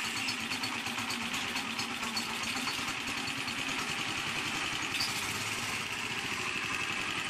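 Honda 8 HP single-cylinder gasoline engine running steadily just after being started, with its fuel line shut off so that it is running on the gasoline left in the float bowl.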